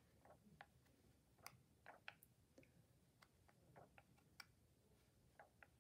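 Near silence broken by faint, irregular soft ticks and flicks of paper as the pages of an old children's book are turned by hand.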